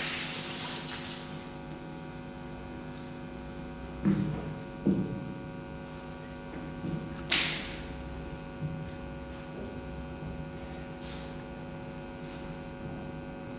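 Steady electrical mains hum, with a hiss at the start and a few handling knocks: two dull thumps about four and five seconds in, and a sharper knock a little past seven seconds.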